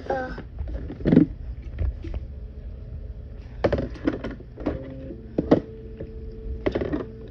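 A few knocks and thunks as a plastic tumbler is handled against a stainless steel surface, over a low rumble, with a faint steady hum joining about five seconds in.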